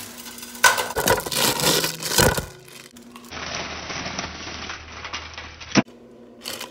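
Dry instant ramen noodle block being crushed and broken up by hand over a pot, a loud crackling crunch with wrapper crinkling. It is followed by a duller, muffled noise that stops with a sharp click.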